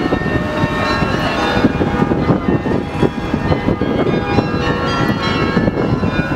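Bells ringing a run of notes over the steady din of a busy city square, with a tram passing.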